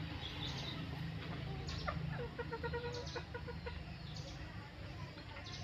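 A chicken clucking: a quick run of clucks from about two seconds in, with short high bird chirps coming and going and a steady low hum underneath.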